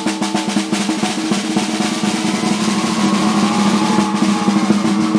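Snare drum played with drumsticks gripped between the toes: fast strokes that run together into a continuous drum roll, growing slightly louder toward the end.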